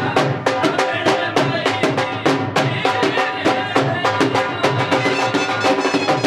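Dhols, double-headed drums beaten with sticks, playing a fast, driving rhythm, with a wind instrument holding a steady melody over the drumming.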